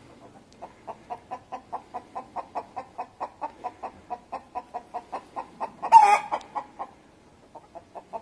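Domestic hen giving a rapid run of alarm clucks, about five a second, broken by one loud squawk about six seconds in; the distress call of a hen with a fox stalking close by.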